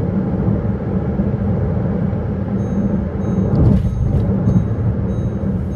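Steady low rumble of road and engine noise inside a moving car, with thin high tones in the middle.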